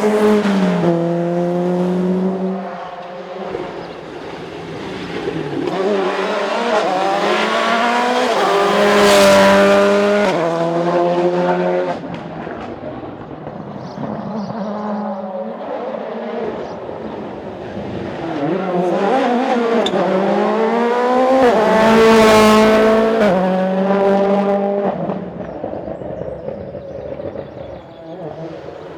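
Rally cars passing at speed on a closed stage, their engines at high revs with quick gear changes. One car fades away at the start, a second approaches and passes about nine seconds in, and a third passes about twenty-two seconds in.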